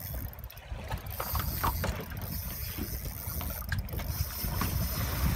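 Fishing reel being wound in against a hooked fish on a bent jigging rod, its gears giving a light mechanical whirr with scattered clicks, over a steady low rumble of wind and water.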